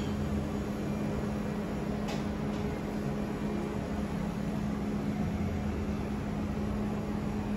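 Steady mechanical room hum: a constant low tone over an even wash of noise, with two faint clicks about two seconds in.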